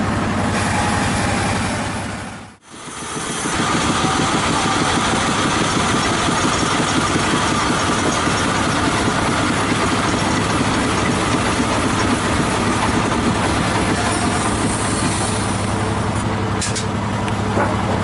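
A large engine running steadily at an even speed, a continuous low drone. It fades out and back in about two and a half seconds in.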